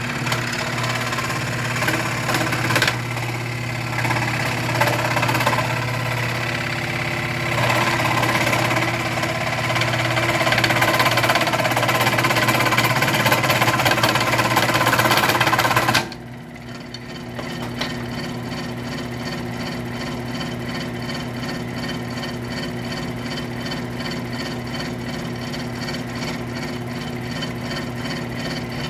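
WEN scroll saw running, its blade cutting through a thick piece of wood with a steady reciprocating buzz. About halfway through, the louder cutting noise drops away suddenly, leaving the saw running on its own.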